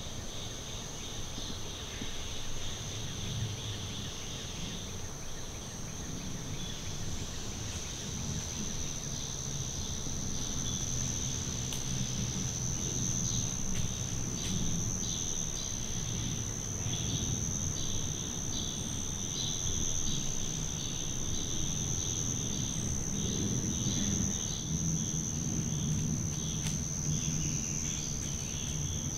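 Evening insect chorus in summer woods: a steady high-pitched drone with a rapidly pulsing chirping just below it, over a low rumble.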